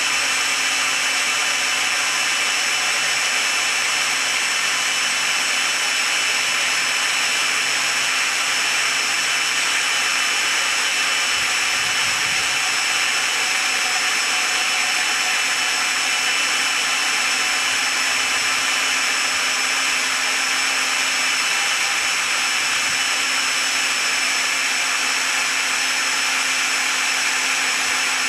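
Cordless drill running at a steady speed with a steady whine, turning the threaded-rod lead screw of a homemade CNC machine so the gantry creeps along its frame.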